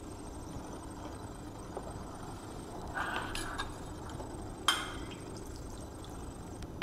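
A few light clinks and knocks of kitchen utensils and glassware being handled on the counter, a small cluster about three seconds in and a sharper clink with a short ring a little later, over a steady low background hum.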